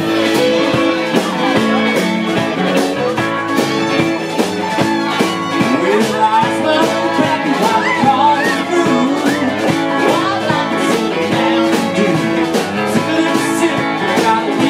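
Live country band playing, with electric guitars, fiddle and a drum kit keeping a steady beat.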